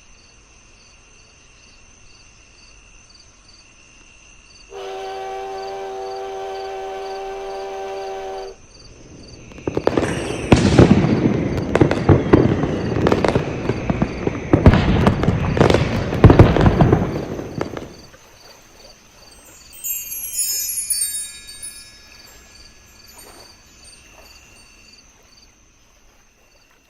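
Night ambience of insects chirping steadily. About five seconds in, a steam train whistle blows a steady chord for about four seconds, then a long volley of fireworks bangs and crackles for about eight seconds. Around twenty seconds in, a bright sparkling chime cascades down and fades back into the night insects.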